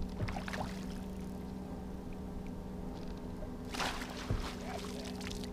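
A landing net scooping a hooked fish out of the water with a short splash about four seconds in, over a steady electric hum.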